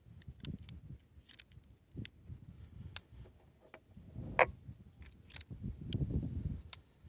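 Handling noise: scattered light metallic clicks and rattles, the sharpest about four and a half seconds in, over low rumbling bumps.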